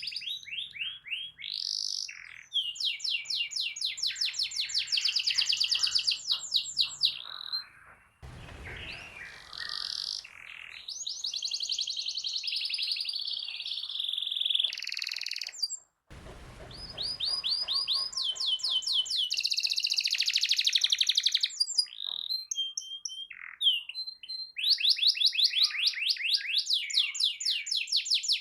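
Domestic canary in full song, a long run of fast, high-pitched trills and rolls made of rapidly repeated notes. The song breaks off briefly twice, about 8 and 16 seconds in.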